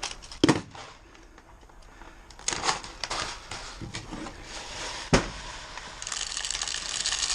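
Scattered clicks and knocks from handled airsoft gear, then from about six seconds in a fast, steady mechanical ratcheting rattle.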